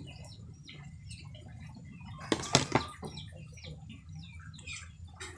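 Wet handling of marinated squid on a ceramic plate by hand, with a quick cluster of three sharp knocks about halfway through. Short high chirps are scattered throughout over a low steady hum.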